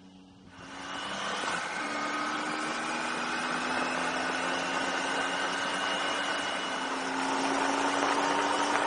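Triumph Tiger 800 XCa's three-cylinder engine running at road speed, heard through the onboard camera's microphone with wind rushing over it. It comes in suddenly under a second in, and the engine note climbs slowly.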